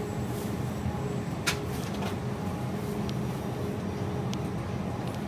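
Steady background hum of a grocery store aisle, with one sharp click about a second and a half in and two faint ticks later.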